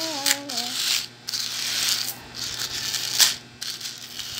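A child sings the last few "la la" notes, then a metal ball chain rattles and rasps against the hard floor as it is gathered and laid out by hand.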